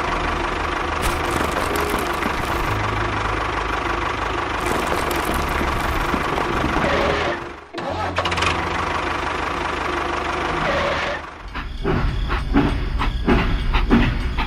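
Engine running steadily with a dense mechanical noise, cutting out abruptly twice, then changing about eleven seconds in to a rhythmic low knocking like an engine idling.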